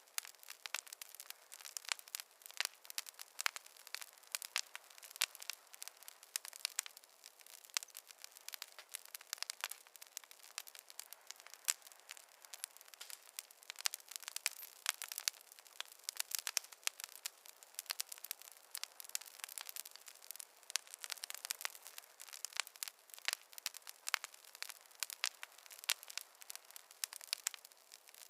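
Fireplace fire crackling: a steady stream of small irregular pops and snaps, thin and light with no low rumble.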